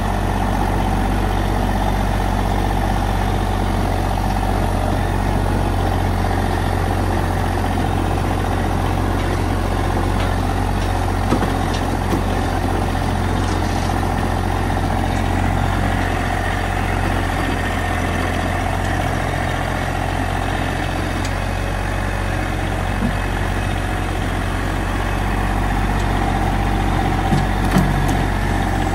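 Massey Ferguson GC1710 compact tractor's three-cylinder diesel engine running steadily at an even speed, with a few brief knocks.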